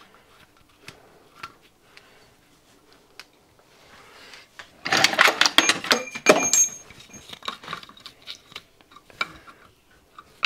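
Metal hand tools clattering and clinking for about two seconds, halfway through, as an adjustable spanner is picked out from among other tools. Light taps and clicks of metal parts being handled before and after, with one sharp tap near the end.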